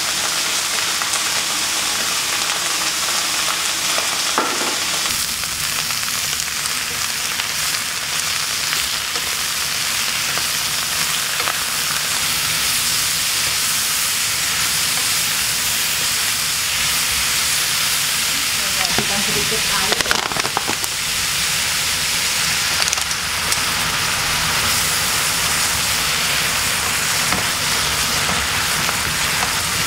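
Pak choy and tofu sizzling in a hot nonstick frying pan as they are stir-fried with a wooden spatula: a steady frying hiss with the stirring mixed in.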